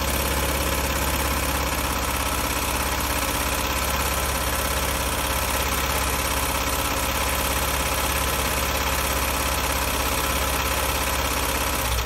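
A 2001 Mini Cooper R50's 1.6-litre four-cylinder petrol engine idling steadily while misfiring. The misfire comes from cylinder number one, where the injector gets no pulse from its wire.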